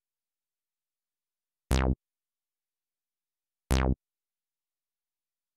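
Silence broken by three short, identical synthesizer notes, evenly spaced about two seconds apart.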